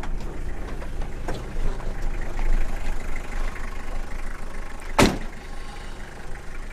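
The 1992 Toyota Hiace's 2.4-litre diesel idling with a steady low hum, with a few light clunks and one loud sharp knock about five seconds in.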